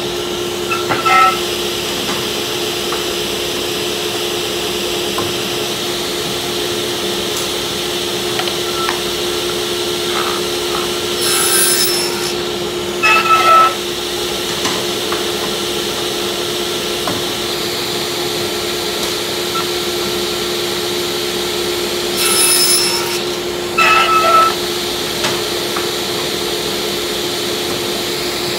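Table saw running with a steady hum, its blade cutting shallow kerfs across plywood. Short louder bursts of cutting come in pairs roughly every ten seconds as the board is pushed into the blade.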